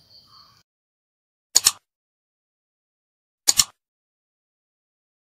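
Mouse-click sound effects from a subscribe-button animation: two quick double clicks, about two seconds apart, with silence around them.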